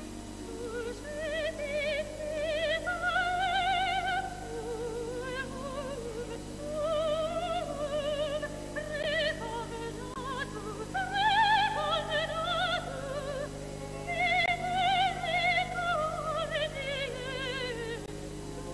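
Soundtrack music: an operatic voice singing long phrases with heavy vibrato over a steady, sustained accompaniment. There are short breaks between phrases about five and ten seconds in.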